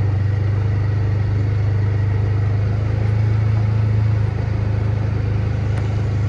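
Side-by-side utility vehicle running as it drives, a steady low engine drone that dips slightly about four seconds in.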